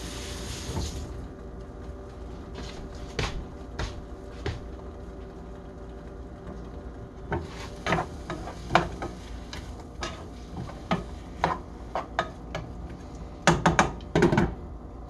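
Scattered knocks and clinks of kitchen utensils and dishes being handled on a counter, with a quick run of several knocks near the end, over a steady faint hum.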